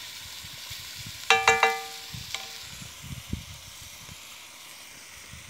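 Partridge and potatoes sizzling in a cast iron pot over coals, stirred with a wooden spoon, with soft knocks against the pot. About a second and a half in come three quick metallic clanks that ring briefly.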